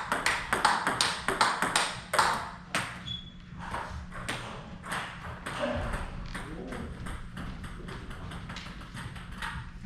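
Table tennis rally: the ball is struck with rubber-faced bats and bounces on the table in a quick run of sharp ticks, loudest in the first three seconds and lighter after. The impacts have a cracking sound that the players liken to a ball breaking, which they credit to the new test rubber.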